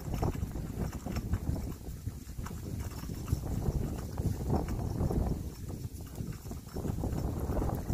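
Wind buffeting the microphone: an irregular low rumble that swells and fades.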